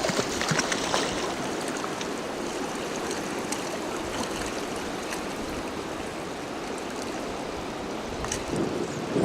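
Steady rushing of river water flowing, as an even wash of noise; a louder low rumble starts right at the end.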